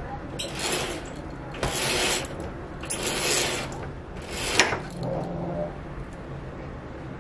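Vertical window blinds being drawn open: the slats swish and rattle along their track in about four pulls over the first five seconds, with a sharp click on the last one, then it goes quieter.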